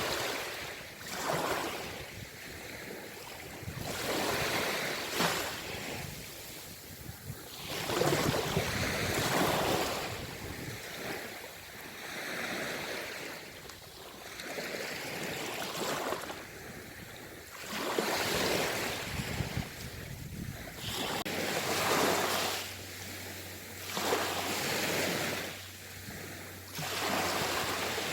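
Sea waves washing in, the surf swelling and falling back every few seconds.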